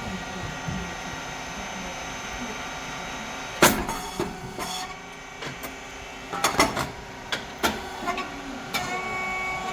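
Rice cake puffing machine running with a steady hum, one loud sharp bang about three and a half seconds in, and a quick run of clicks and knocks a few seconds later.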